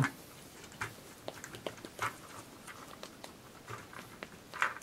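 Light, irregular clicks and taps of a telephone's plastic keypad housing and its loose push buttons being handled, with a louder click near the end.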